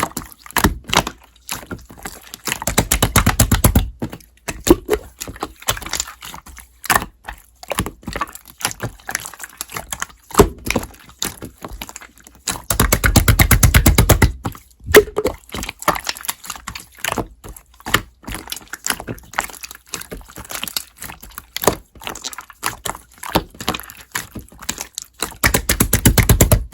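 Slime being played with by hand: a steady run of sticky clicks and pops as it is poked and pulled, with three longer spells of dense crackling and squelching when it is pressed and folded, about three seconds in, around the middle, and near the end.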